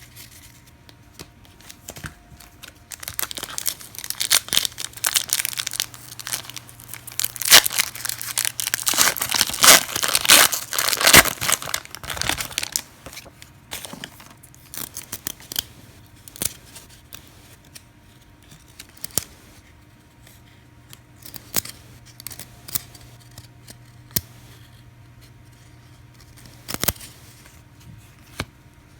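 A trading card pack wrapper being torn open and crinkled for several seconds, then sparse soft clicks and slides of cards being handled and flipped through.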